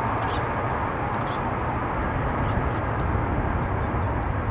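Boeing 777-200ER's twin jet engines at takeoff power, a steady roar with a deep rumble underneath as the airliner rolls down the runway away from the listener.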